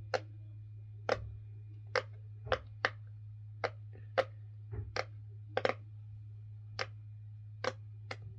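Sharp plastic clicks from a handheld fidget toy being worked, about fifteen of them at uneven spacing, sometimes two in quick succession.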